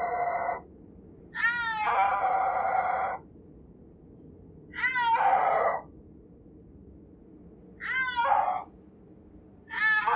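Snow leopard calling: a string of mewing yowls, each opening with a quick bend in pitch and then held for under a second to nearly two seconds, one about every two to three seconds.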